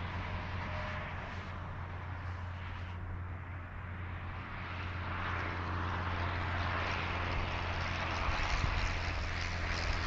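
Interstate highway traffic: a steady low drone, with a vehicle's tyre and engine noise growing louder over the second half as it approaches.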